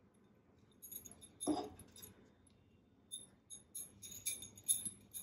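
Faint, scattered clinks and scrapes of a metal spoon against a cooking pan as cooked rice is stirred, with one louder knock about a second and a half in.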